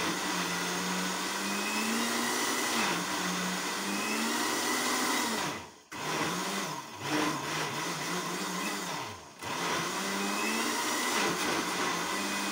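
Countertop blender motor running on a thick smoothie, its pitch sagging and recovering as it churns. It cuts off briefly twice, about six and nine seconds in, and starts again: this blender has to be run in spurts, switched on and off.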